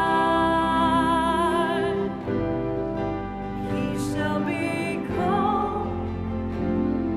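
Music: a singing voice holding long notes with vibrato over instrumental accompaniment.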